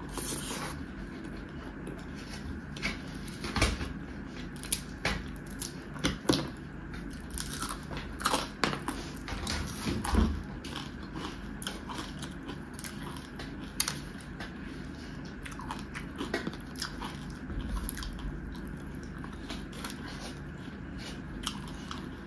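A person chewing a mouthful of rice and fish eaten by hand, close to the microphone: irregular wet smacks and mouth clicks, busiest in the first half and sparser later.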